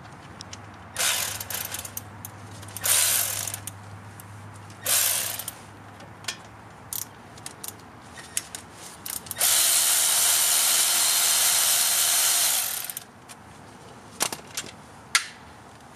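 Cordless power ratchet run in three short bursts and then one steady run of about three seconds, with sharp clicks between, backing out bolts at a truck's front wheel hub.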